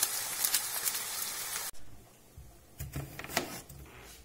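Oyster mushrooms and onion sizzling and crackling in oil in a frying pan, cutting off abruptly after about a second and a half. Then a few soft knocks of a knife slicing a raw potato on a plastic cutting board.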